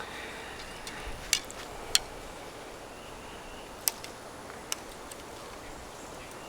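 A few short, sharp clicks spread over several seconds, from archery gear being handled between shots, over quiet outdoor background.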